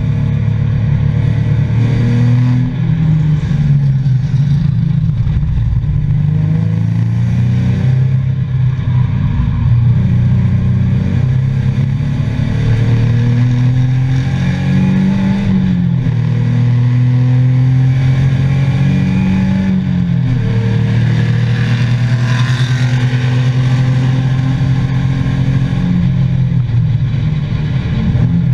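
2003 Nissan 350Z's 3.5-litre V6 engine heard from inside the cabin, driven hard on a race track, its pitch climbing under acceleration and dropping back several times at gear changes and lifts.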